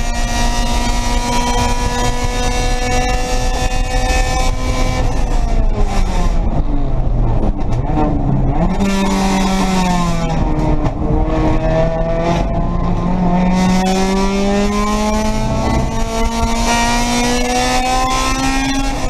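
Race car engine heard from inside the stripped cockpit, held at high revs on a straight, then falling with several short dips and blips as the car slows for a corner, then climbing steadily again under acceleration. There is a sharp drop near the end, like an upshift. Wind and road noise hiss underneath.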